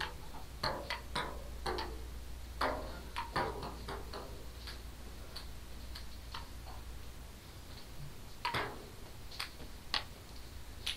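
Ping-pong ball clicking off paddles and the tabletop during a rally: irregular sharp ticks, many close together in the first few seconds, then fewer and further apart, with a couple of louder hits near the end.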